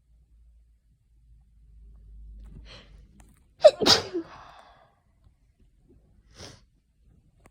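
A person with a cold sneezing once: a soft intake of breath builds for a couple of seconds, then one loud, sharp sneeze bursts out about three and a half seconds in and trails off quickly. A short breath follows near the end.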